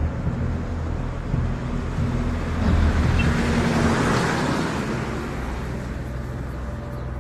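A truck driving past close by with its engine running, the noise swelling to a peak about four seconds in and then fading, over road traffic.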